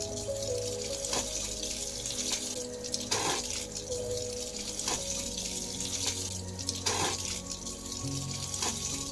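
Water running and splashing as freshly harvested turmeric rhizomes are washed clean of soil, over soft background music.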